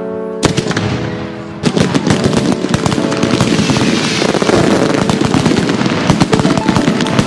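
Firecrackers going off in a dense, rapid run of crackling and popping. It starts about a second and a half in, after a short stretch of music with held tones.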